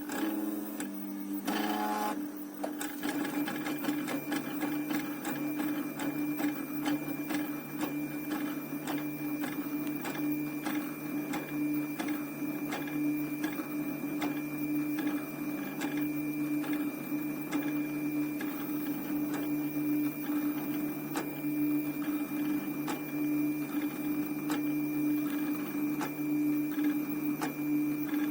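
Small stepper motors of a home-built 3D printer made from old CD-drive mechanisms, running with a steady whine and a fast, fine ticking as they drive the axes.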